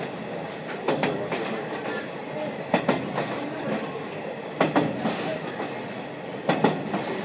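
Running sound from inside a 50-series passenger coach with the window slightly open: the wheels clack over the rail joints in pairs, about one pair every two seconds, over a steady rolling rumble.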